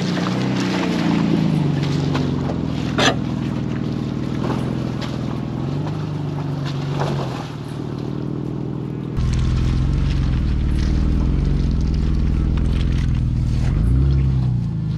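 A 2005 Jeep Liberty's engine running at crawling speed off-road, its pitch rising and falling with the throttle. Scattered knocks come through it, with a sharp click about three seconds in. The low rumble gets louder about nine seconds in.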